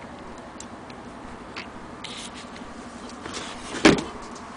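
Antique hand-crank Singer 28K sewing machine being handled: a few light clicks from its crank and mechanism, then one loud clunk just before four seconds in.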